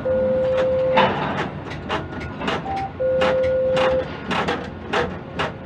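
Electronic beeping in a quay crane's cab: a steady one-second tone at the start, a short higher beep, then the same one-second tone again about three seconds in, over a run of sharp clicks and knocks.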